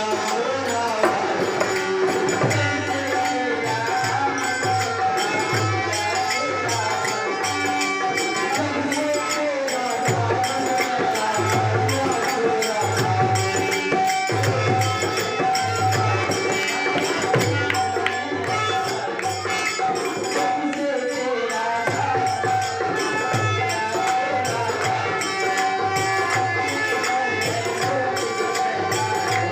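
Indian folk devotional music: a drum beating about once a second with jingling percussion, over a steady held tone.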